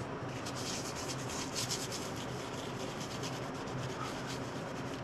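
Quick hand rubbing strokes on the 1939 Ford transmission during reassembly, a run of short scratchy swishes that are busiest between about one and two seconds in, over a steady low hum.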